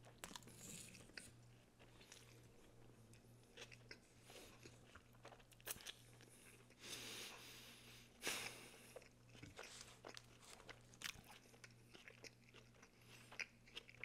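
Faint, close-miked chewing of a mouthful of vegetable-filled sub sandwich: soft crunching and wet mouth clicks, with two longer, louder swishes about seven and eight seconds in.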